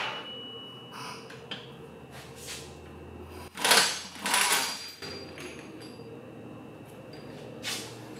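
Two short bursts of a pneumatic wrench, about half a second apart and a few seconds in, loosening a rear differential mounting bolt, with a weaker burst near the end. A low steady hum runs underneath.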